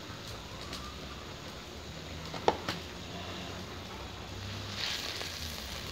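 Kenikir leaves in coconut liquid simmering in an aluminium wok over a wood-fired stove, with a steady low hiss. There are a couple of sharp knocks about two and a half seconds in and a brief scrape of the spatula in the wok near the end.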